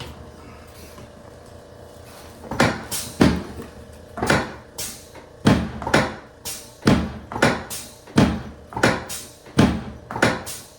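A run of sharp knocks or thumps, about two a second, beginning about two and a half seconds in.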